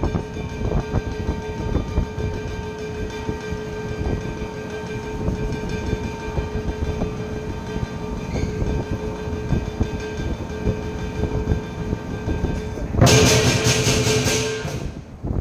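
Lion dance percussion: a big drum beaten in a fast, dense pattern under steadily ringing cymbals and gong. Near the end comes a loud burst of rapid cymbal clashes that stops suddenly.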